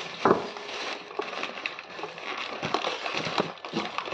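Clinks, knocks and crinkles of plates, spoons and food packaging being handled as takeaway food is served out. Many short sharp clicks, the loudest knock about a third of a second in.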